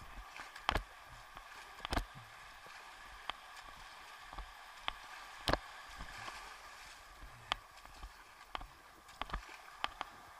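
Kayak in broken surf: a steady rush of foaming whitewater, with sharp knocks and slaps every second or two from paddle strokes and water hitting the boat, several in quick succession near the end.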